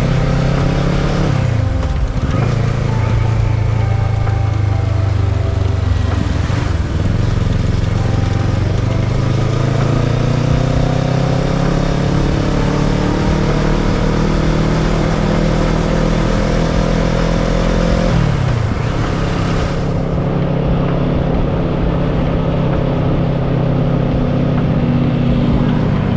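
Kawasaki ER-6n's 649 cc parallel-twin engine heard from on board while riding. Its pitch drops near the start and again about six seconds in, then climbs slowly for about ten seconds under acceleration. It drops sharply around eighteen seconds in and then runs steady.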